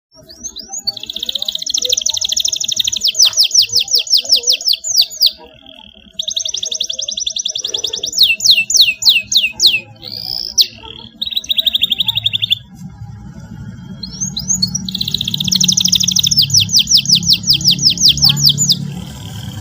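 Canary singing: fast, high-pitched trilled rolls in several long phrases, broken by short pauses.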